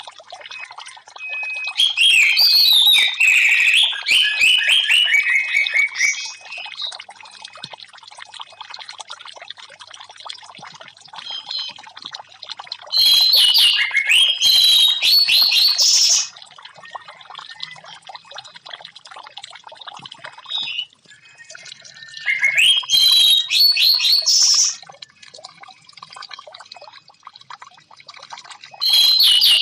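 Orange-headed thrush song in loud phrases of two to three seconds, four times, over a steady trickle of running water.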